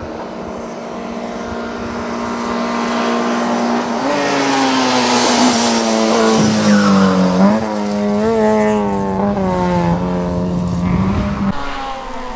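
Peugeot 205 N1300 race car's 1.3-litre four-cylinder engine held at high revs as the car climbs past, growing louder as it nears, dropping in pitch as it goes by about six seconds in, then falling away sharply near the end.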